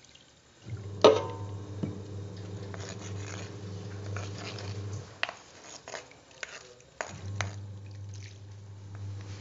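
A stone mortar knocks against the rim of a wok and wet spice paste is scraped and tipped onto cassava chunks: a sharp knock with a short ring about a second in, then scattered clicks and scrapes. A steady low hum runs under most of it, dropping out for a couple of seconds in the middle.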